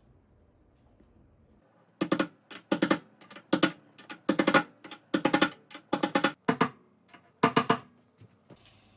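A run of about a dozen sharp, ringing knocks in quick uneven pairs and clusters, starting about two seconds in and stopping about a second before the end.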